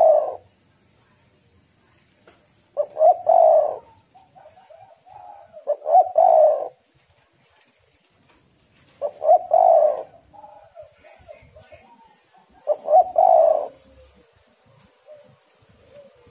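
Spotted dove (tekukur) cooing in repeated phrases, a loud coo about every three seconds with softer notes between. The uploader presents it as the call of a female in breeding condition.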